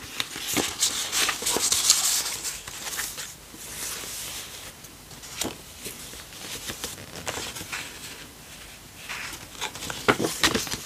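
Paper rustling and soft taps as the thick pages and tucked paper inserts of a handmade junk journal are handled and turned. The rustling is louder in the first few seconds, and a few sharper taps come near the end.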